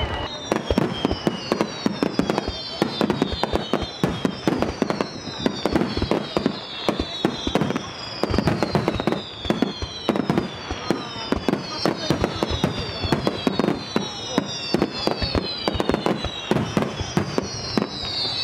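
Aerial fireworks display: a dense, continuous run of sharp bangs from bursting and launching shells, with high whistles that fall in pitch recurring every second or two.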